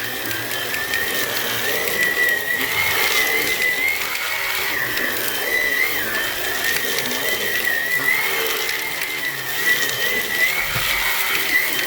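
Hoover Onepwr Blade cordless stick vacuum running on full speed while cleaning stairs: a steady motor whine that wavers slightly up and down in pitch over the rush of air.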